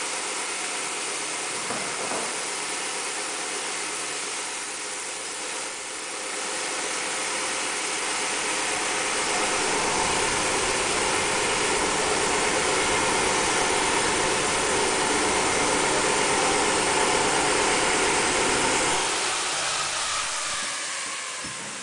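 A machine running steadily with a hum and a hiss. It gets louder from about six seconds in, holds until about nineteen seconds, then eases off.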